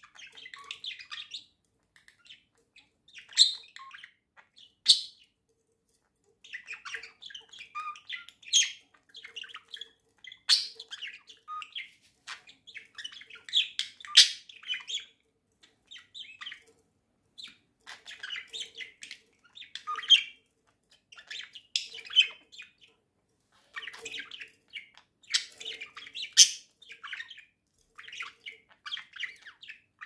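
Budgerigars chattering: a near-continuous run of soft warbling and twittering, broken every few seconds by loud, sharp chirps.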